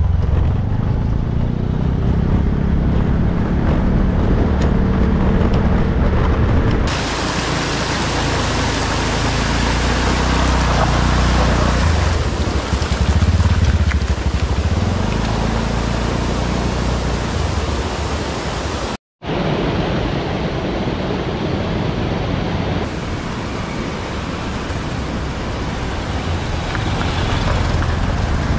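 Motorbike and scooter engines running on a rough gravel road, with heavy wind and road noise over a low rumble. The sound changes abruptly a few times and drops out completely for a moment about two-thirds of the way through.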